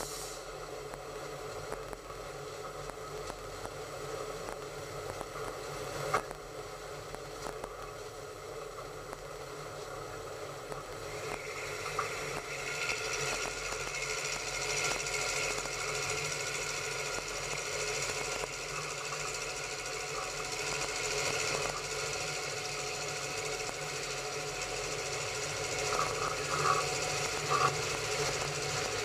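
Train running along the track at speed: a steady rattling running noise that grows louder and brighter about eleven seconds in. A few sharp wheel knocks over the track stand out, one about six seconds in, one about twelve seconds in, and three close together near the end.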